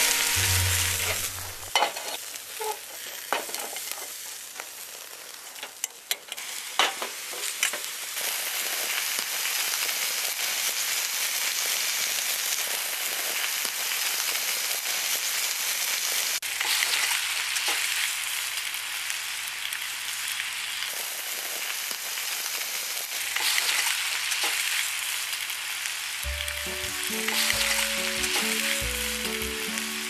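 Pork belly sizzling steadily on a grill, with a few sharp clicks and taps in the first several seconds. Background music comes in near the end.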